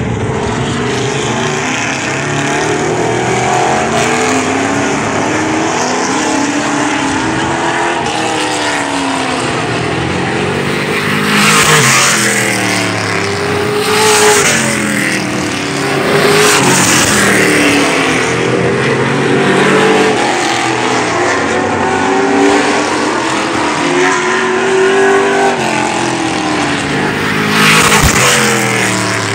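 Several stock race cars running laps of an oval track. Their engines climb and fall in pitch as they accelerate and lift, with a louder rush each time a car passes close by, several times.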